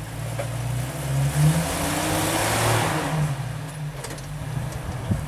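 Rock-crawler buggy's engine revving under load as it climbs over boulders, building to its loudest between about one and three seconds in and then easing back.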